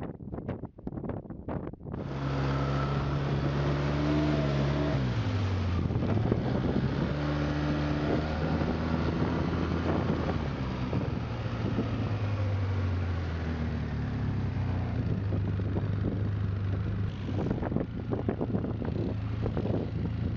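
Wind buffeting the microphone in gusts for about the first two seconds, then an ATV engine running steadily close by, its pitch dropping about five seconds in and then holding.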